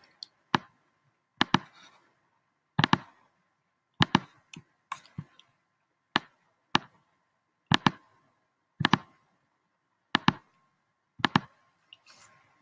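Clicks of a computer pointing device while editing a web page: about a dozen short, sharp clicks spaced roughly a second apart, many in quick press-and-release pairs, with quiet between them.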